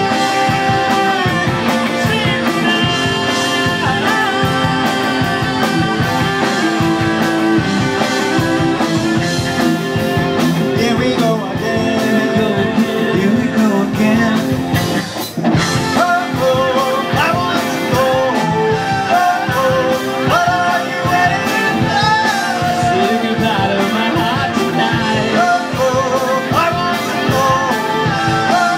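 Live rock band playing: distorted electric guitars, bass guitar and a drum kit, with singing, with a brief drop in loudness about halfway through.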